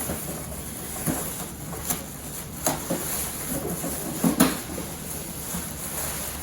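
Parts of an electric deep fryer being handled: a few separate light knocks and clunks, the loudest a little past the middle.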